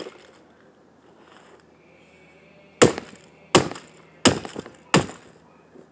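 A brick slammed down onto a Furby toy four times, blows about two-thirds of a second apart, starting about three seconds in.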